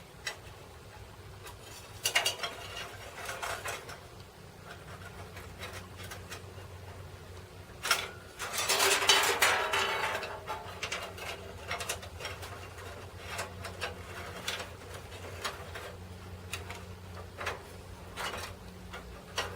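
Metal clicks, light clatter and scraping of a band saw blade and the saw's wheel and guard parts being handled during a blade change on a Wen tabletop band saw, with a longer rattling scrape about nine seconds in. A faint low steady hum runs underneath.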